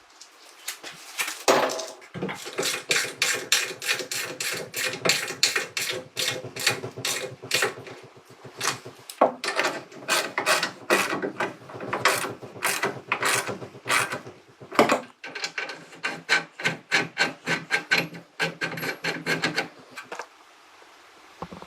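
Rapid, rhythmic rasping strokes of a hand tool, about three or four a second, with a steady hum underneath; they stop shortly before the end.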